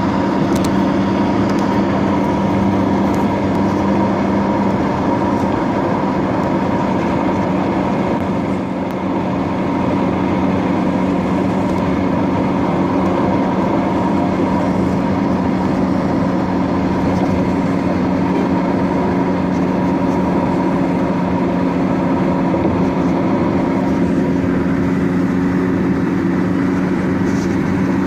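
Steady drone of a road vehicle's engine and tyre noise, heard from inside the moving vehicle at a constant speed.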